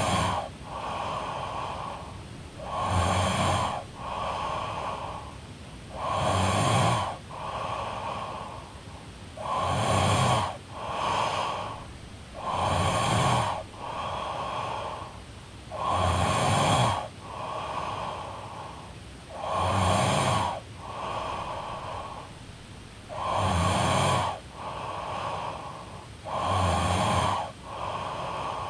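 A woman snoring in steady sleep. Each cycle is a loud rasping snore followed by a softer, shorter breath sound, repeating about every three and a half seconds.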